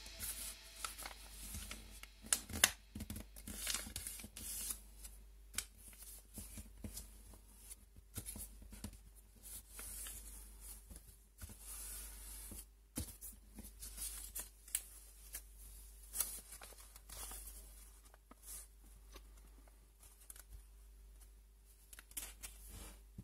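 A sheet of paper being folded by hand into a paper airplane: irregular crackles, rustles and scrapes as the folds are pressed and creased against the table.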